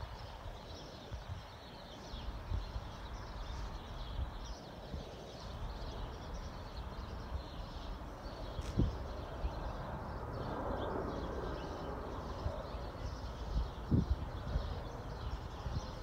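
Many small birds chirping faintly in the background, short high calls all through, over a low rumble. A broad wash of noise swells and fades around the middle.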